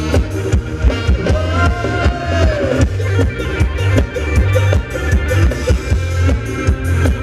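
Live band playing Thai ram wong dance music loudly, with a steady beat, heavy bass and drum hits. About a second in, a held melodic note sounds for about a second and a half.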